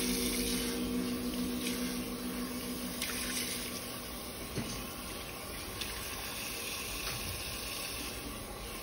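Water running from a salon shampoo-bowl hand sprayer, rinsing hair over the basin: a steady rushing hiss.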